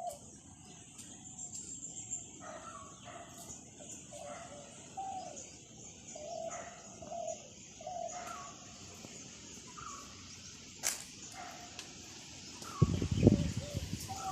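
Birds calling over and over, short calls about once or twice a second. Near the end a brief, loud low rumble of wind buffeting the microphone.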